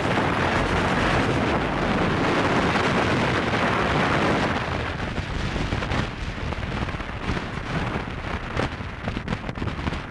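Wind and road rush on a moving motorcycle, riding on a wet road: a dense, steady rush for the first few seconds, then a rougher, gusting buffeting of the microphone.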